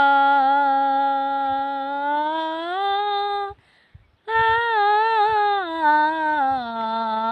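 An elderly woman sings unaccompanied, holding a long wordless 'aa' vowel that steps up in pitch. After a short breath about three and a half seconds in, she holds a second note that wavers and slowly falls.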